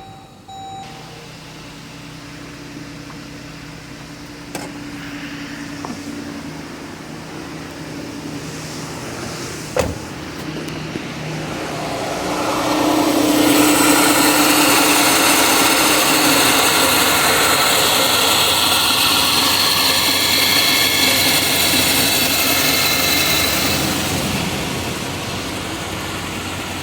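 Jeep Grand Cherokee engine running at idle, with a single sharp click about ten seconds in, then brought up to a much louder, higher speed for about ten seconds before easing back down near the end.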